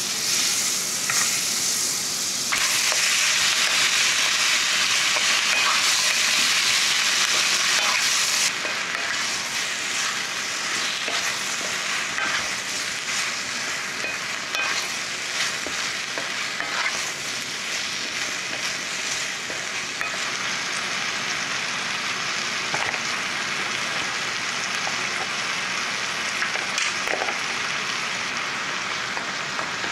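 Butter, onion, carrot and sausage sizzling steadily in a Staub cast-iron pot while a wooden spatula stirs them, with small scattered clicks. The sizzle gets louder a couple of seconds in and eases back about eight seconds in.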